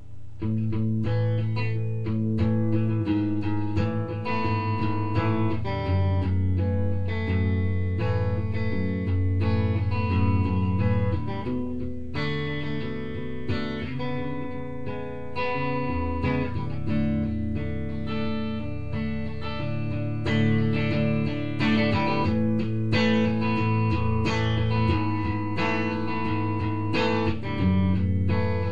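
Guitar music: picked notes and chords over a steady bass line.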